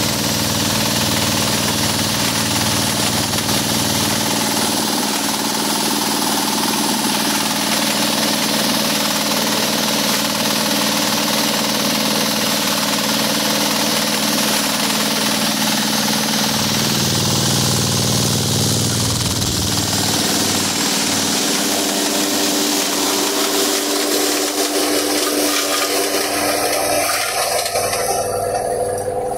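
JF 50 Maxxium forage chopper running loud and steady, chopping whole green corn plants into silage as they are fed in by hand. The tone of the machine shifts a little partway through as the load changes.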